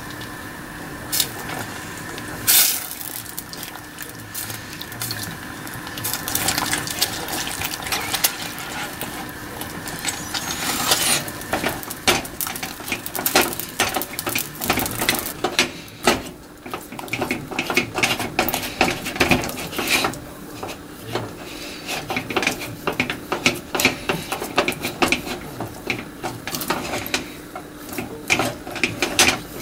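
Silicone spatula stirring sweet potato starch batter in a stainless steel saucepan: at first wet sloshing, then from about twelve seconds in, a dense run of scrapes and knocks against the pot as the batter thickens into a sticky paste.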